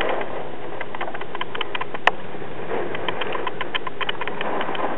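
Steady rush of hurricane rain with many small, irregular ticks of water drops, and one sharp click about two seconds in.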